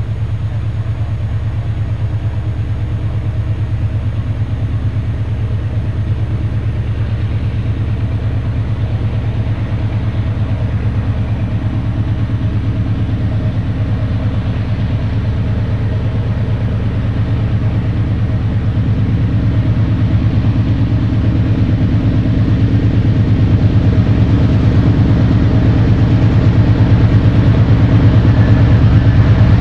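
Diesel locomotive engine running with a steady low throb, growing gradually louder as the train approaches.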